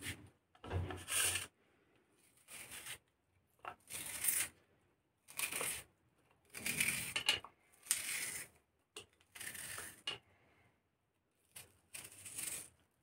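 A knife slicing through a raw red onion held in the hand, in about ten crisp crunching strokes, roughly one a second.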